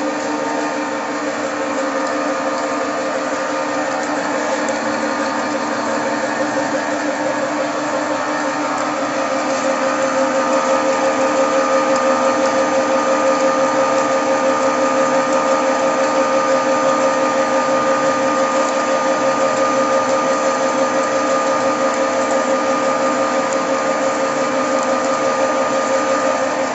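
Single-screw oil press running under load while pressing soybeans, a steady machine hum with a constant whine that grows a little louder about ten seconds in.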